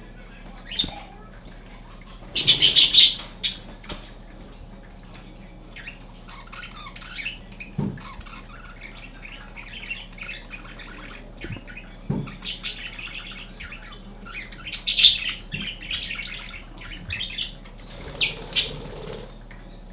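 Budgerigar chirping and chattering in quick runs of short high notes, with a loud harsh squawk about two and a half seconds in and a few short knocks.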